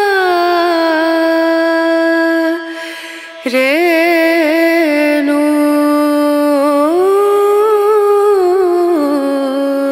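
Background music led by a singing voice holding long, slowly gliding notes, in two phrases with a short break about three seconds in.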